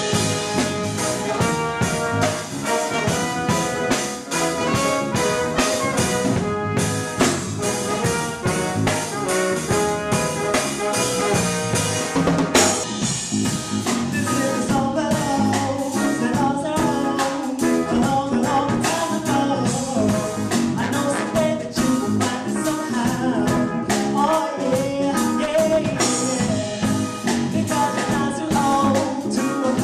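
Live reggae band playing a song: drum kit, bass, guitar and piano with a trumpet and bass trombone horn section, and a singer's voice over it.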